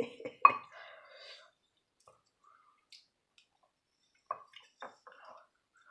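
Close-up chewing and wet mouth sounds of someone eating quinoa and kale, with short clicks. There is a sharp click about half a second in, a quiet stretch in the middle, and a cluster of wet clicks near the end.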